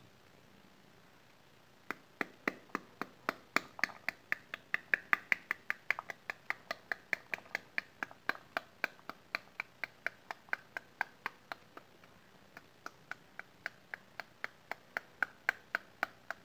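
A serving ladle tapping the back of a halved pomegranate held cut side down over a bowl, knocking the seeds loose into it. It is a steady run of sharp knocks, about three or four a second, with a short break near the end.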